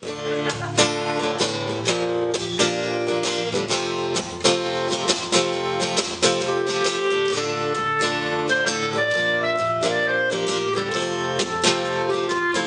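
Live band playing an instrumental intro: strummed acoustic guitars in a steady rhythm over electric bass guitar, with a clarinet playing held melody notes.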